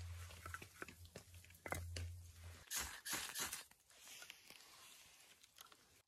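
Crunching and light clicks and knocks of split firewood being handled at the log pile, with a louder spell of crunching about three seconds in. A low steady hum runs under the first half and stops about two and a half seconds in.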